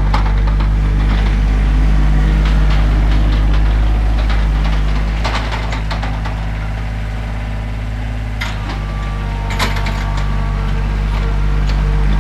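John Deere 2025R compact tractor's three-cylinder diesel engine running steadily, easing off midway and building again near the end. A few sharp clanks sound over it.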